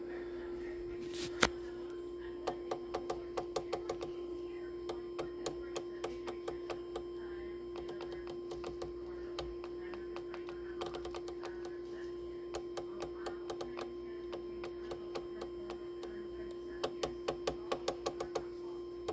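Rotary channel selector of a Cobra 29 WX NW ST CB radio clicking through its detents in several quick runs of clicks, with one louder single click about a second and a half in. A steady tone runs underneath throughout.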